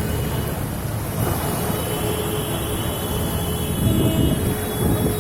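Steady low rumble of a vehicle engine running, with traffic noise.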